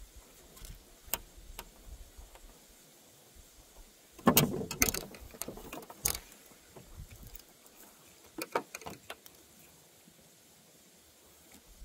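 Handling noises of fishing tackle being rigged: scattered small clicks and taps, with a burst of rustling knocks about four seconds in and a sharp click near six seconds.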